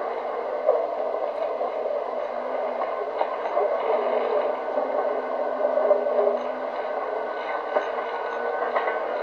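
Onboard sound of a stripped-out banger racing car running on the track: engine and cabin rattles with small knocks. It sounds thin and tinny, with no bass, as picked up by the in-car camera.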